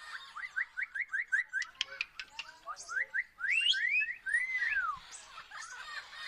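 Parrot calling: a quick run of short rising chirps with a few sharp clicks mixed in, then longer whistled glides ending in one whistle that arches up and falls away.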